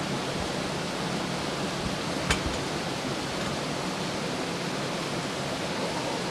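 Steady, even hiss of background noise, with a single sharp click a little over two seconds in.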